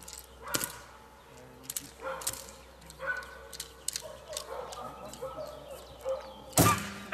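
A dog barking in short, spaced barks, with sharp clicks between them and one heavy knock near the end that is the loudest sound.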